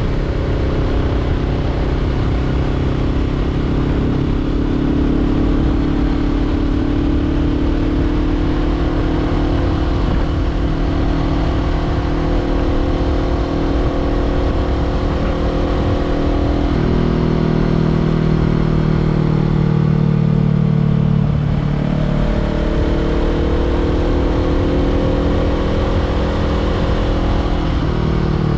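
Honda CBR500R parallel-twin engine through a LeoVince LV10 slip-on exhaust, riding at steady revs with wind rush. The engine note changes abruptly a little past halfway and again a few seconds later, and the revs slide down near the end.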